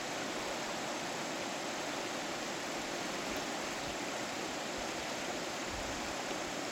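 Steady rushing of a river's falls and rapids, an even hiss that does not change.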